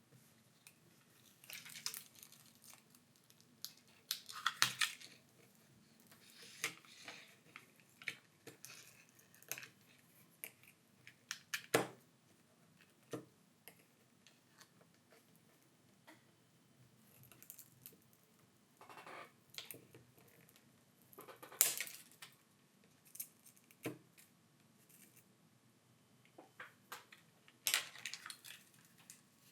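Faint, scattered scrapes, clicks and tearing noises of thin pry tools working under a cracked phone screen, cutting through strong adhesive and crackling broken glass as the display is lifted from the frame.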